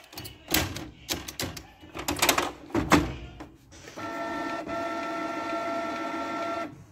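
Plastic clicks and knocks from the Canon Pixma G3411 ink-tank printer as its cartridge area is handled and its cover shut. Then, almost four seconds in, the printer's mechanism runs with a steady whine for about three seconds and stops sharply.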